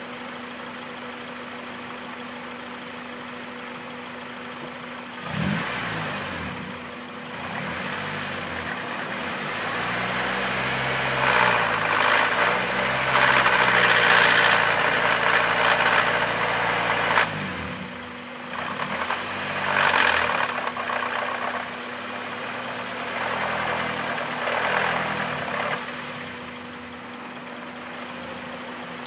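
Honda K20A2 2.0-litre four-cylinder engine idling, then revved up several times, the longest rev held for several seconds before dropping back to idle. A high-pitched screech comes in with the revs, which the owner hears from the cylinder head and cannot explain, the timing chain being tight.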